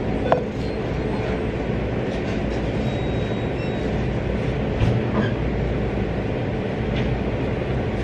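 Steady low rumbling background noise of a busy coffee shop, with a sharp click about a third of a second in and a few faint light knocks later.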